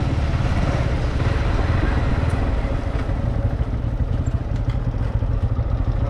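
Motorcycle running steadily on the road, a continuous low rumble.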